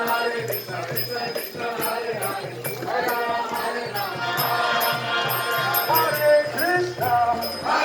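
Devotional chanting sung to music, with small metal percussion ringing in a steady beat about three times a second and a low drum-like pulse beneath.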